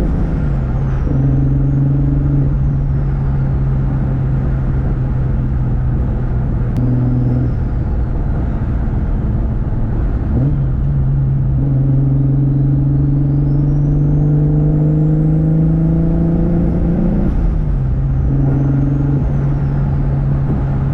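Turbocharged 1.5JZ inline-six of a Lexus IS300 running under light throttle while driving. The engine note steps down about a second in, climbs again midway and drops once more near the end. A faint high turbo whistle rises and falls with it.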